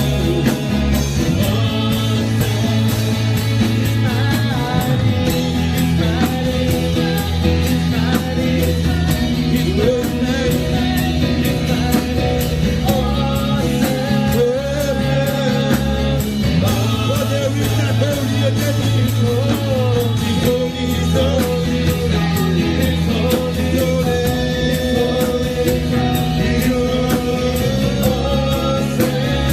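Live gospel worship band playing with a steady beat, held bass notes and electric guitar, with a voice singing a wavering melody over it.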